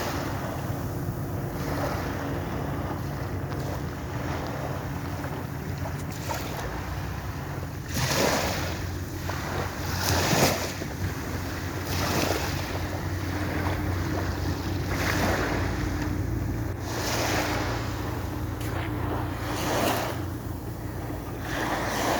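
Sea waves breaking on a shore, the surf surging and washing back every couple of seconds over a steady low rumble. Wind buffets the microphone.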